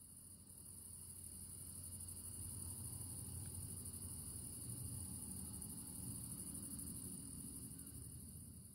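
Faint night ambience of crickets chirping steadily over a low hum, fading in and back out.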